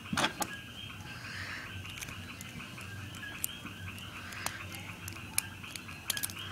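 Scattered sharp clicks and taps of Beyblade top parts being handled and pressed together by hand, over a steady high-pitched background sound.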